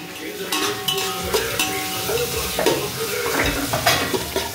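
Sliced onions sizzling in hot oil in an aluminium pot while a metal slotted spoon stirs them, scraping and clinking against the pot.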